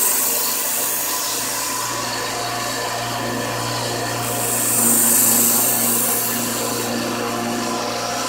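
Electric knife-sharpening machine running with a steady motor hum, while a steel knife blade is ground against the abrasive in two passes that hiss, the second louder, about halfway through.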